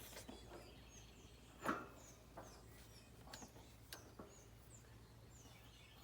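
Faint bird chirping: short, falling chirps repeating about twice a second. A single sharp knock comes near two seconds in, with a few lighter clicks after it.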